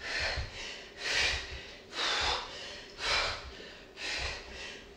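A woman breathing hard through a set of fast sit-ups: a sharp, hissing breath about once a second, five in all, with soft low thuds of her body moving on the mat.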